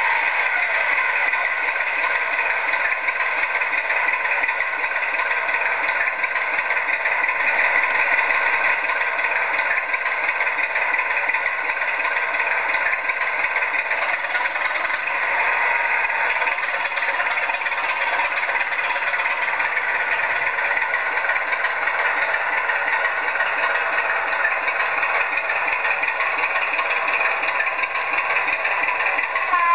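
Recorded Class 25 diesel engine sound from a model locomotive's LokSound DCC sound decoder, running steadily through the model's small speaker. It has a thin, rattly tone with no deep bass. The engine idles while the model stands, and it pulls away in the second half.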